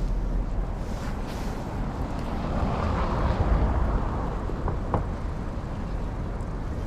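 City street traffic on a snowy downtown road: a steady low rumble, with a vehicle passing close about three seconds in. Two light clicks come near the end.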